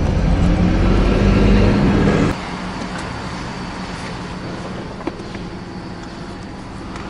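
Car engine and road noise heard from inside the cabin while driving, the engine note rising at first. A little over two seconds in the sound drops abruptly to a quieter steady hum, with a single click about five seconds in.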